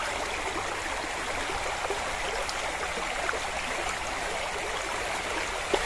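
Shallow river water flowing steadily over stones, with a single sharp click near the end.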